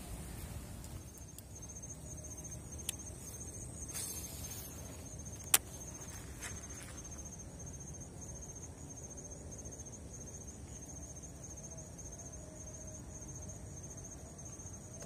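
Insect trilling: a steady, high-pitched, rapidly pulsing chirp, with a few sharp clicks, the loudest about five and a half seconds in.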